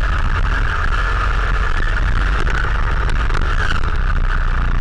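Radio-controlled car driving at speed: a steady high motor and drivetrain whine over a heavy low rumble of tyres on the track, muffled through the camera's waterproof case.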